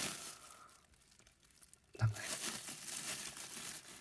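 Thin plastic bag crinkling as a resin figure is handled and pulled out of it. The rustle fades out in the first second and stops briefly. It starts again about halfway through with a soft thump and more crinkling.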